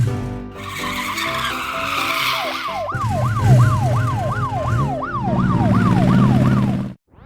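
Cartoon vehicle sound effects: a screeching whoosh, then a siren wailing up and down about twice a second over a low engine-like hum. The sound cuts off abruptly just before the end.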